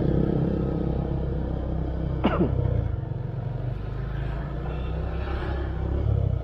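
Steady low rumble of a motor scooter riding along a street, engine and road noise together. About two seconds in, a brief tone drops in pitch.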